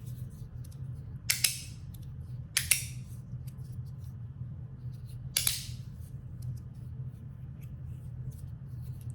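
3D-printed magnetic fidget slider snapping from one end to the other, with three loud, sharp, shrill clicks and fainter ticks of the slide between them. Slide tape on one side smooths the slide but has not cured the click.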